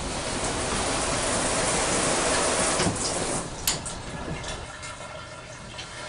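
Shower spray running steadily, then easing off about three and a half seconds in, followed by a sharp click and a few faint ticks.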